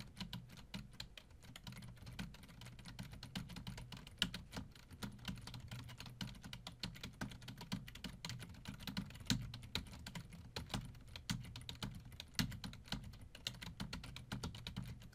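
Computer keyboard being typed on quickly and at random: a fast, irregular stream of key clicks.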